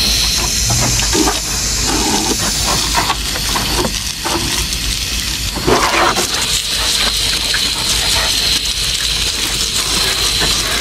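Water spraying onto a car to soak it before soaping, a steady hiss.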